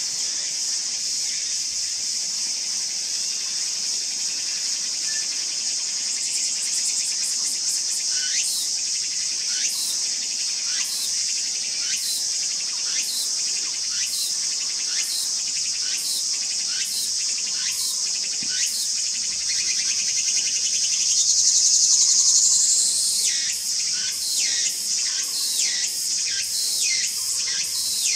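Steady high-pitched drone of singing insects, swelling for a couple of seconds about three-quarters of the way in. Short repeated notes sound about once a second from roughly a third of the way in and come faster near the end.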